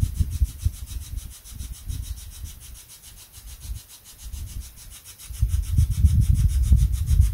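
Low, uneven rumbling noise that grows louder about five seconds in, with a faint, fast, even ticking hiss above it.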